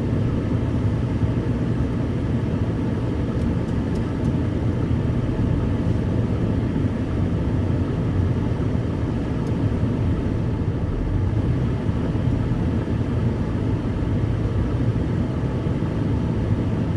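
Ventrac compact tractor's engine running steadily as the machine is manoeuvred in reverse.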